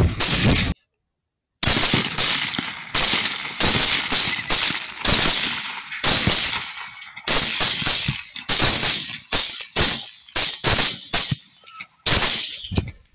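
Rifle shots fired in rapid succession at feral hogs, often several a second, each sharp crack followed by a short decay. There is a second-long break of silence about a second in.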